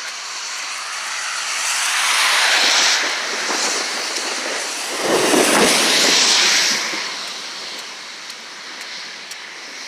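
Two vehicles passing one after the other on a wet road, the hiss of tyres on water swelling and fading away each time. The second pass is deeper.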